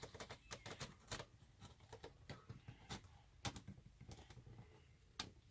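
Faint, irregular clicking and crackling of thin RV wall panel material being cut and broken by hand.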